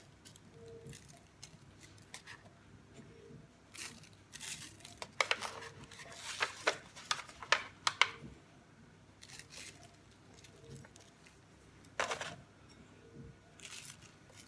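Disposable aluminium foil tray crinkling and flexing as it is handled and tilted, in irregular crackles that cluster in the middle with another sharp one later, while breadcrumbs are sprinkled over skewered meat rolls in it.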